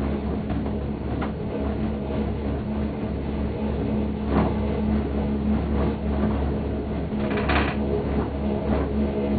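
Leitner six-seat gondola cabin riding up the cable: a steady low hum with a few short knocks, and a brief rattle about seven and a half seconds in.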